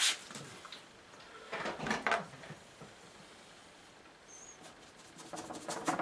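One short spray from a hand-pump water spray bottle right at the start, then a hand rubbing wet acrylic paint across a textured painting board: scratchy rubbing strokes about two seconds in and again near the end.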